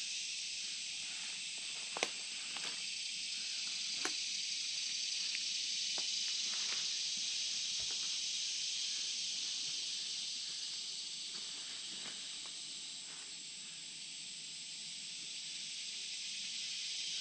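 Steady high-pitched insect chorus in summer woods, an even hiss with a few faint clicks about two and four seconds in.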